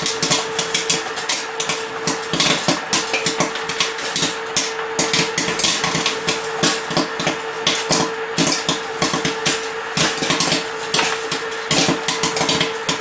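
Popcorn kernels popping fast in the steel kettle of a small electric popcorn machine, a dense, irregular run of sharp pops several a second. A steady hum runs underneath.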